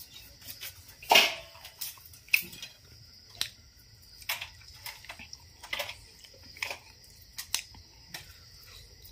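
Crispy fried chicken being bitten and chewed: scattered crunches and clicks about a second apart, the loudest about a second in.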